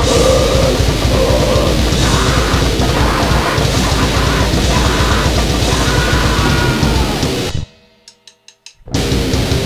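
Grind-noise band playing flat out: distorted guitar, bass and fast drums in one dense, loud wall of sound. Near the end it stops dead for about a second, a few faint ticks sound in the gap, and the band crashes back in.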